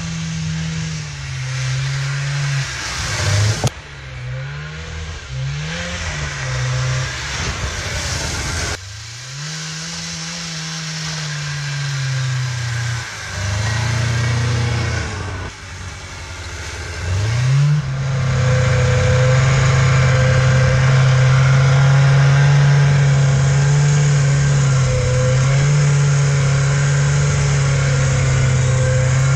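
Yamaha Enticer 340 snowmobile's two-stroke engine revving up and down in several short passes, broken by abrupt cuts. Then it runs steadily at speed, loud and close, heard from the seat.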